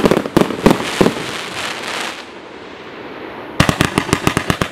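50-shot consumer fireworks cake firing. A loud bang opens it, with a few more bangs within the first second, then a crackling hiss that dies away after about two seconds. Near the end comes a rapid string of about ten shots, close to ten a second, as the tubes launch red comets.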